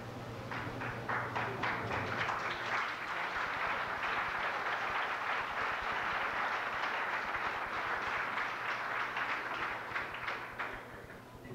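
Audience applauding: scattered claps about half a second in build into steady applause, which thins out and stops near the end.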